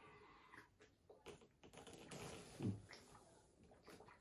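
Near silence with faint scattered clicks and taps as a cardboard milk carton is handled and drunk from, and a brief low sound falling in pitch about two and a half seconds in.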